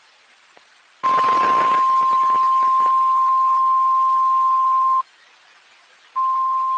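NOAA Weather Radio 1050 Hz warning alarm tone: a single steady high tone that starts about a second in, sounds for about four seconds, stops, and starts again near the end. It plays over radio hiss with scattered crackles of static.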